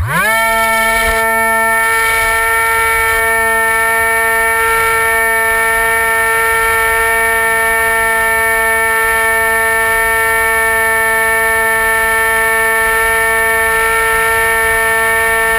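Dynam Hawk Sky RC plane's electric motor and propeller heard from the onboard camera: a whine that shoots up in pitch as the throttle opens at the start, then holds one steady high pitch with a stack of overtones at full power.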